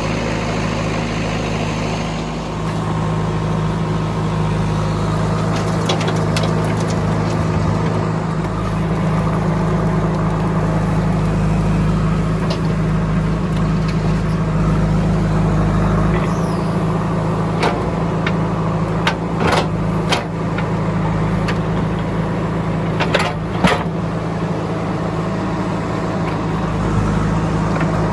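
Heavy diesel machinery running steadily during mud loading, with several short sharp clanks in the second half.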